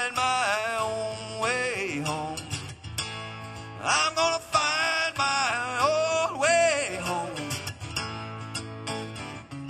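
A man sings to his own acoustic guitar in a live solo performance. He sings two long phrases with bending pitch, the second starting about four seconds in, over steady strummed guitar.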